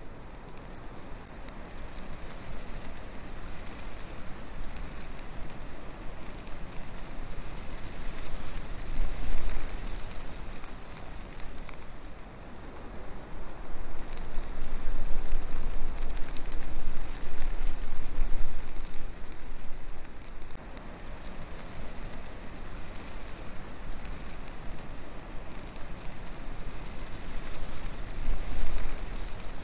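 Steady rushing hiss with low rumbling gusts from wind and propeller wash on a flying quadcopter's onboard microphone. The rumble swells about nine seconds in, again for several seconds in the middle, and near the end.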